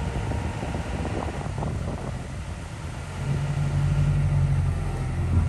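Low engine rumble of a vehicle running, most likely the delivery truck, with a steady low hum that gets louder about three seconds in.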